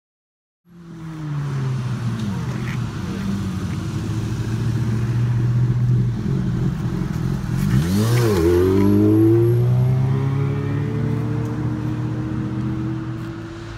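A motor running, starting abruptly under a second in, with its pitch shifting through several levels and swooping up and down sharply about eight seconds in.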